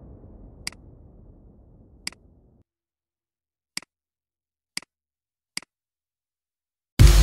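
Computer mouse clicking five times at uneven intervals over a faint hiss that fades out; loud electronic dance music starts near the end.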